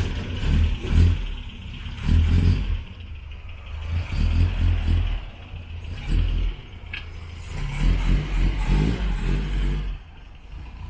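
Car engine running and revving as the car drives, swelling and easing several times, then falling away about ten seconds in.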